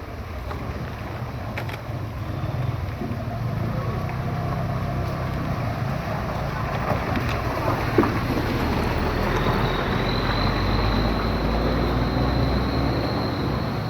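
A motor vehicle's engine running steadily with a low hum, and a faint high steady whine joining about ten seconds in.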